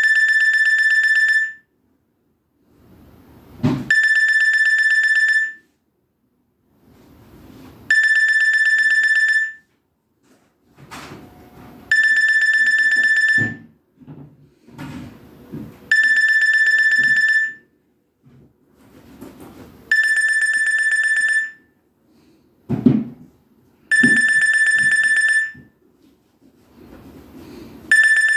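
Nokia 6131 mobile phone's speaker playing a repeating electronic alert tone: a buzzy, rasping beep of about a second and a half, sounding every four seconds. A faint low hum swells before each beep, and a couple of sharp clicks fall between them.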